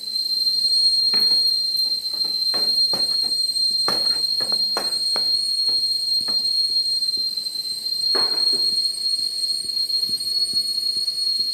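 A steady high whistle-like tone runs throughout, with a spoon or spatula clicking and scraping in a frying pan at irregular intervals as chopped onions are stirred into melted butter and garlic.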